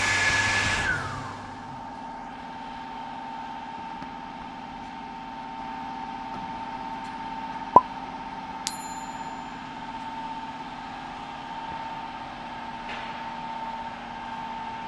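A vacuum forming machine's vacuum system rushes loudly with a high whine and shuts off about a second in, the whine falling in pitch as it runs down. A steady machine hum carries on after it. About eight seconds in comes a mouse-click sound effect, followed by a bell ding.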